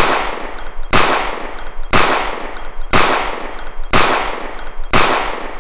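A series of six gunshot sound effects, about one a second, each with a long ringing decay, and a faint high steady tone between the shots.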